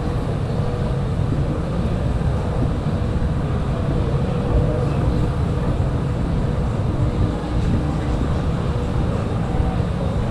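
Steady low rumble of city background noise, with faint, steady hums running through it.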